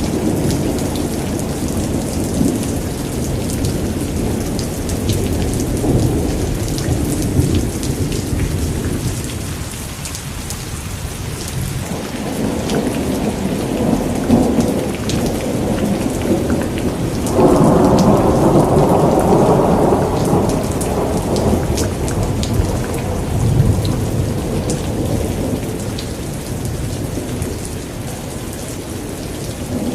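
Steady rain falling with thunder rumbling under it; the thunder swells to its loudest for about three seconds a little past halfway.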